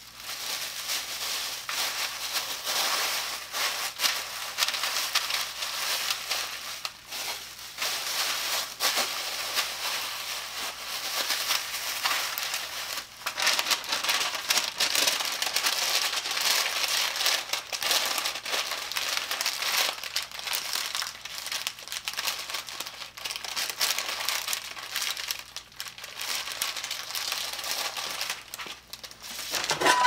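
Thin HDPE plastic grocery bags crinkling and rustling as they are crumpled and pressed by hand into a parchment-lined baking pan, in an irregular stream of sharp crackles.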